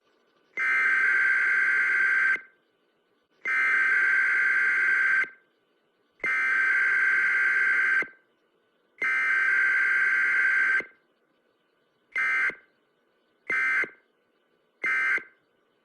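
An electronic buzzer-like alert tone beeping at one steady pitch: four long beeps of just under two seconds each, then three short quick beeps.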